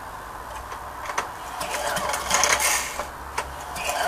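A 1972 Briggs & Stratton 3.5 hp lawnmower engine being pull-started: the recoil starter is yanked twice, a rasping rush each time, and the engine turns over without catching.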